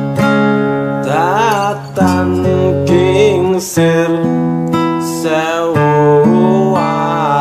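Acoustic guitar chords ringing under a man singing a Javanese kidung, his voice winding through short, ornamented phrases every second or two.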